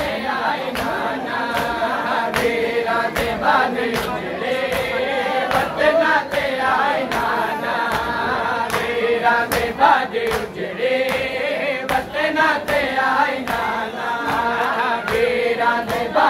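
Men's voices singing a Punjabi noha together in a chanting melody, over a steady beat of sharp slaps a little under two a second from the mourners beating their chests (matam).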